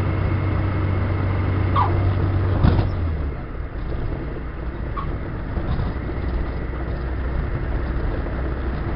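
Fantasy 812 ultralight's engine and propeller heard from the cockpit, running steadily, then throttled back to a lower idle about three seconds in as the aircraft flares over the runway threshold to land. A click comes just as the engine note drops, and two short high chirps sound around two and five seconds in.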